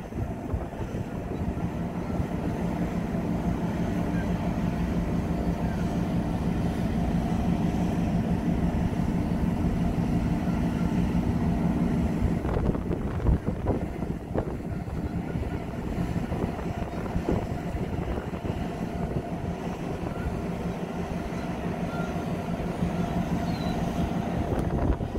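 Harbor tugboat's diesel engine running at a steady low hum, whose tones fade about halfway through, over a continuous low rumble of wind on the microphone.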